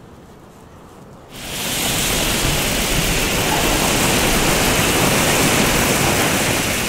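A red Bengal flare (Funke Bengalfeuer) burning on the ground with a loud, steady hiss that sets in abruptly about a second in. Before that there is only a fainter hiss.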